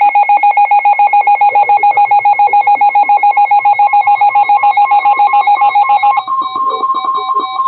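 Emergency weather alert tone on NOAA Weather Radio: a loud electronic beep pulsing rapidly, about eight times a second, which about six seconds in gives way to a steadier single-pitched alert tone. It heralds a severe thunderstorm warning.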